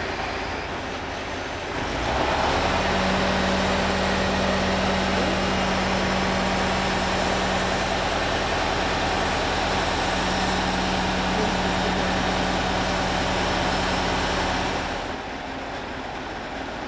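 Truck-mounted mobile crane's engine running raised under load as it hoists a church bell: it steps up about two seconds in to a steady drone and drops back down near the end.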